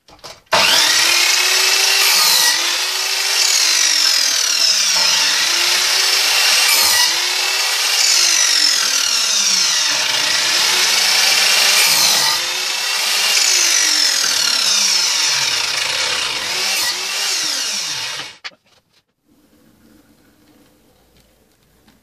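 Electric mitre saw running and cutting through timber. The motor's pitch dips and recovers again and again as the blade bites into the wood. It cuts off suddenly near the end.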